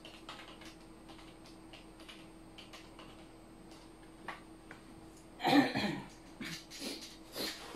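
Light clicking of typing on a computer keyboard, then a single loud cough about five and a half seconds in, followed by a few more clicks.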